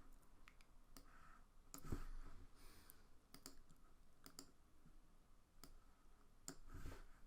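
Near silence with a few faint, scattered clicks from a computer mouse and keyboard.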